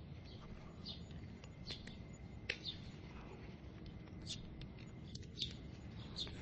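Faint, short bird chirps at scattered moments over a low, steady background hum.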